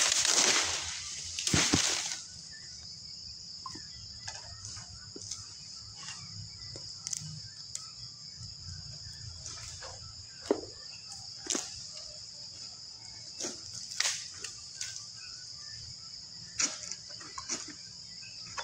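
Steady high-pitched drone of insects in the plantation, with scattered sharp clicks and knocks over it, the loudest in the first two seconds.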